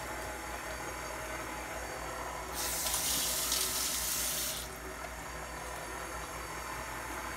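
A kitchen tap runs for about two seconds, starting a little over two seconds in, over the steady hum of a stand mixer running.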